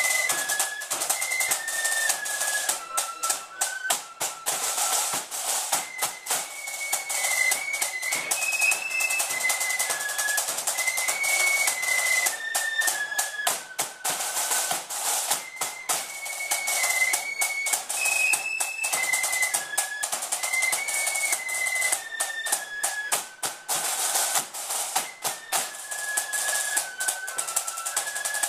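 Flute band playing a tune: the flutes carry one high melody line in unison over snare drums beating a busy pattern.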